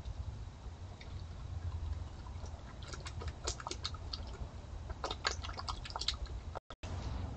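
A raccoon at the water's edge, making small wet clicks and splashes in two short clusters over a steady low hum.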